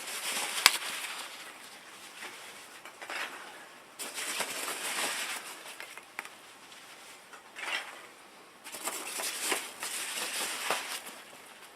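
Foam packing peanuts rustling and crunching as hands dig through them in a cardboard box, in several bouts, with a sharp click near the start.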